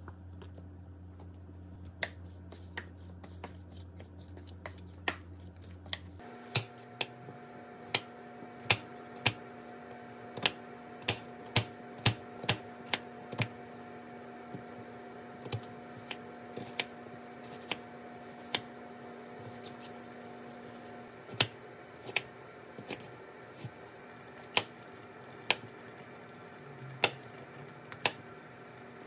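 Small kitchen knife chopping onion and then mushrooms on a wooden cutting board: sharp, separate knocks of the blade meeting the board, about one or two a second after the first few seconds, over a faint steady hum.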